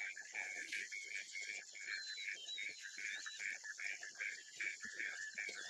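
Savanna ambience: a steady chorus of calling insects or frogs, pulsing about four to five times a second, with brief high bird whistles over it and faint low rustling.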